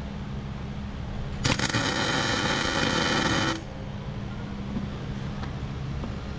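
MIG welder arc crackling steadily for about two seconds, starting about one and a half seconds in and cutting off suddenly, as a nut is puddle-welded onto a broken exhaust manifold bolt.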